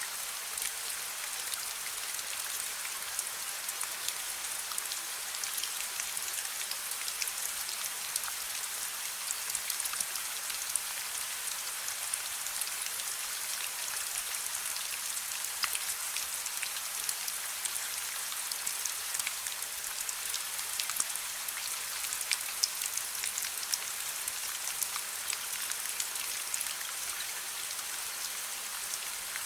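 Steady rain hiss with many small sharp crackles from a wood fire scattered through it, over a faint low hum.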